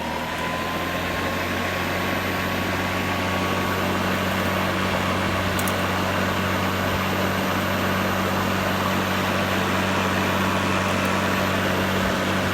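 Greenworks Pro 60-volt battery lawn mower's electric motor and blade spinning at a steady speed: an even whir with a high tone held level.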